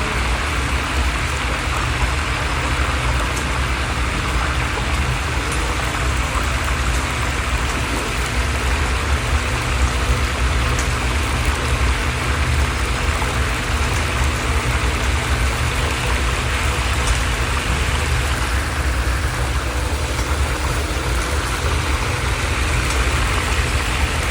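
Fish frying in hot oil, a steady sizzle over a constant low rumble.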